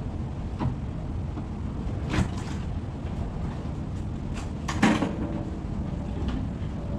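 Wooden cabinet panels knocking as a panel is worked loose and handled: a clatter about two seconds in, then a louder wooden clack near five seconds as the board is dropped onto a pile of boards. A steady low rumble runs underneath.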